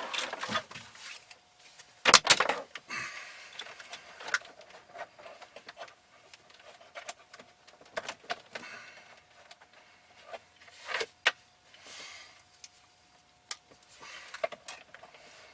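Intermittent rustling, scraping and clicking as a dash cam's power cord is handled and pushed in behind plastic dashboard trim, with the loudest rustle a little over two seconds in.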